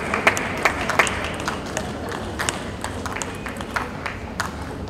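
Arena crowd applauding between points of a table tennis match: scattered sharp claps that thin out and fade.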